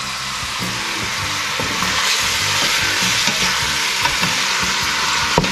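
Chunks of chicken and sliced sausage sizzling steadily in hot oil in a stainless steel pot while being stirred with a wooden spoon, with one sharp knock of the spoon near the end.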